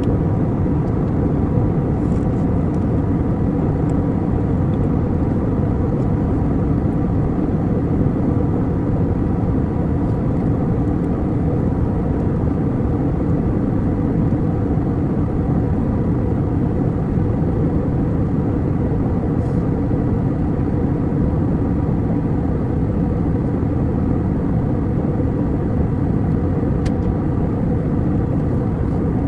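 Steady, unchanging drone of an airliner's passenger cabin in flight, made of engine and airflow noise that sits low and even, with a few faint steady tones above it.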